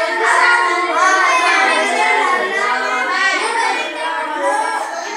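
Children singing, several high voices overlapping, with held and gliding notes.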